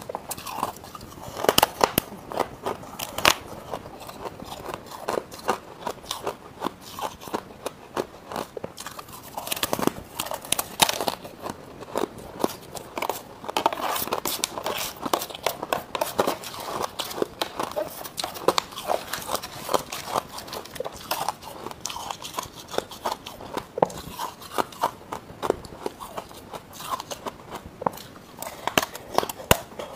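Close-miked crunching and chewing of crushed frozen frost ice, bitten off a spoon in mouthfuls: a dense, continuous crackle of many sharp crunches.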